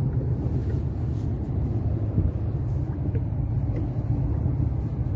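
Boat engine running steadily: a low, even rumble.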